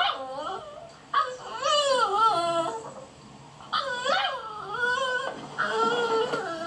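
Beagle puppies whining and whimpering for attention: about three long, high, wavering cries that fall in pitch.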